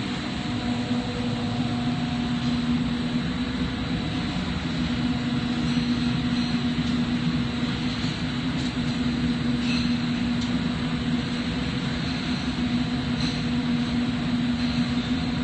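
Oxygen-propane lampworking torch burning steadily: a constant rushing noise under a low, steady hum.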